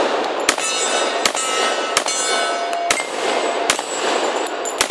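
FN FNP-45 Tactical .45 ACP pistol firing six shots at a steady pace, about one every three-quarters of a second. Steel targets ring on after the hits.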